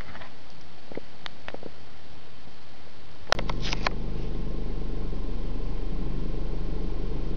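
Forestry forwarder's diesel engine running steadily, cutting in abruptly about three seconds in after a quick cluster of clicks. Before that there are only a few faint clicks over a steady hiss.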